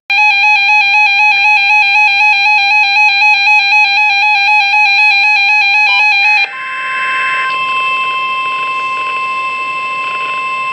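A weather alert broadcast's electronic alarm: a loud, buzzy warbling tone pulsing about three times a second for roughly six seconds. It then cuts over to a steady single tone near 1 kHz, the NOAA Weather Radio warning alarm tone that announces a new alert.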